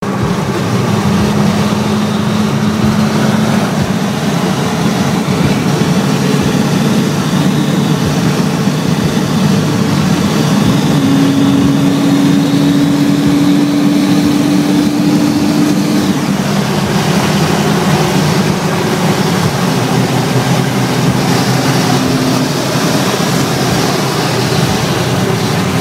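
Hyundai Tiburon with an aftermarket Magnaflow cat-back exhaust cruising at highway speed, heard from inside the cabin: a loud, steady engine and exhaust drone over road and wind noise. The engine note rises a little for a few seconds mid-way, then settles back.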